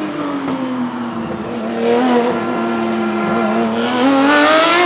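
Racing engine of an open-cockpit sports prototype race car, revs easing slightly through a corner, then rising as it accelerates out, getting louder over the last second.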